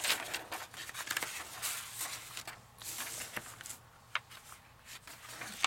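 Sheets of paper and cardstock rustling and sliding as they are handled and laid together in a stack, with a few sharp crisp taps and crackles of paper edges.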